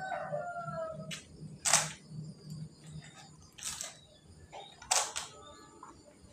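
Metal spoon scooping food out of a plastic colander, three short scrapes against the plastic, roughly a second or more apart.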